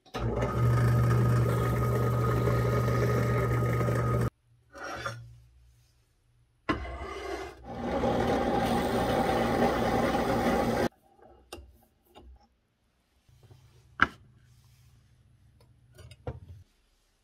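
Drill press running and its twist bit boring into a wooden handle block, in two stretches of about four seconds that each stop abruptly. Later come light handling clicks and one sharp click.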